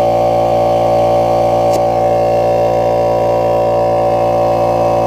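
Air compressor running steadily with a constant droning hum while it inflates a camper tire through a coiled air hose. A brief click about two seconds in.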